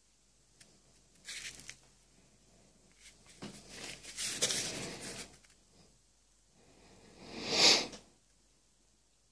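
Handling noises from paper-wrapped firecracker bundles and their paper packaging on a desk: rustling and scraping in three short bursts, the loudest near the end.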